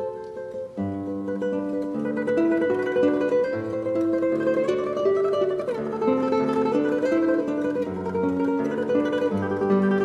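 Solo classical guitar playing a tremolo melody over a plucked bass line. There is a brief dip under a second in, then the playing comes back fuller.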